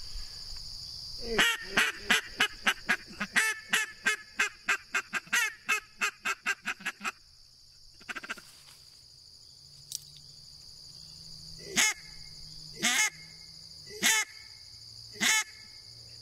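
Double-reed polycarbonate duck call blown in quacks: first a fast run of short quacks, about three a second for some six seconds, then after a pause four single, louder quacks about a second apart near the end. The call is being played with the hand cupped around its end and without it, to compare the sound. Insects buzz steadily in the background.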